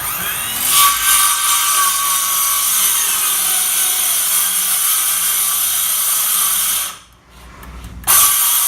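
Ryobi cordless circular saw spinning up and cutting through a countertop board, running steadily for about seven seconds, then stopping. About a second later it starts again and runs briefly near the end.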